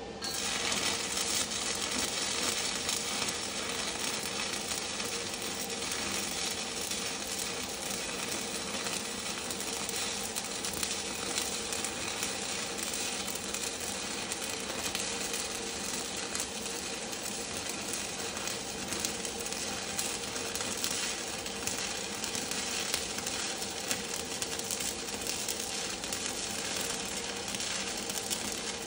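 Stick welding arc from a 7018 electrode run uphill on a vertical (3G) joint. The arc is struck just after the start and then burns with a steady crackle and sizzle.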